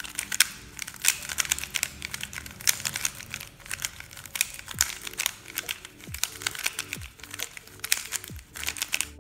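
Fast, dense clacking of a MoYu RS3M 2020 Elite magnetic 3x3 speedcube being turned quickly by hand. From about halfway, background electronic music with deep falling bass notes comes in under the clacking.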